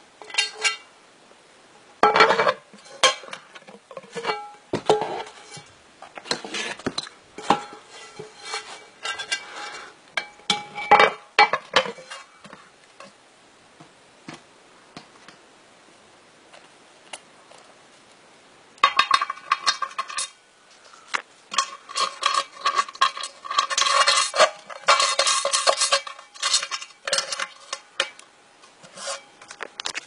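Electric alarm bell, its hammer striking the metal gong in uneven bursts of clanks with a ringing tone after each. The first part has scattered strikes, then a pause, then a dense run of ringing strikes late on.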